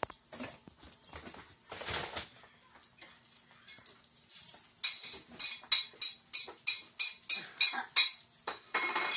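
Squeaky dog toy squeezed over and over: a quick run of short, high-pitched squeaks, about three a second, starting about five seconds in, after a few soft knocks.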